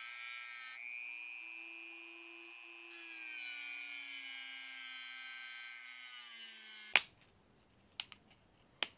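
A Dremel-type rotary tool whines at high speed as it cuts a groove into the plastic top of a Milwaukee M12 battery pack. Its pitch shifts and sags as the bit bites, then it spins down a little before seven seconds in. A sharp click and a few light plastic clicks follow.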